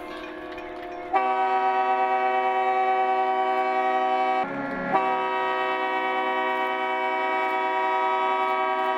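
Yacht foghorns sounding in long, steady blasts. A fainter horn chord gives way about a second in to a loud blast, which breaks off briefly around the middle and then sounds again to the end.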